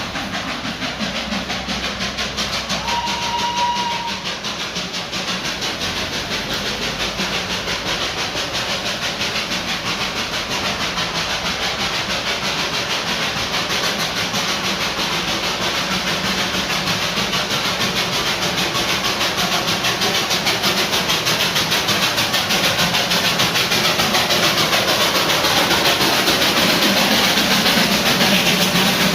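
Darjeeling Himalayan Railway narrow-gauge train running, a steady rapid rattle that grows slowly louder. A brief high tone sounds about three seconds in.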